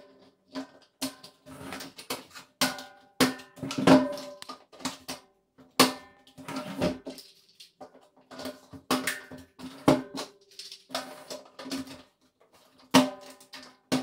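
Irregular plastic knocks and clicks as a caster-wheel base is pressed and snapped onto a stainless steel vacuum container. Many of the knocks set the steel drum ringing at the same pitch.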